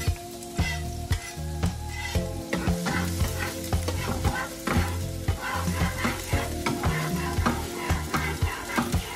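Minced garlic sizzling in hot oil in a nonstick frying pan while a spatula scrapes and stirs it, with repeated scraping strokes about twice a second.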